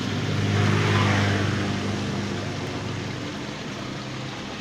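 A motor engine running, growing louder about a second in and then slowly fading away.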